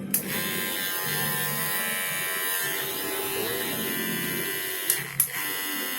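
Electric clipper's small DC motor, fitted with new carbon brushes, switched on with a click and buzzing steadily at full speed: the motor that ran weakly now runs strong again. About five seconds in it is clicked off and straight back on.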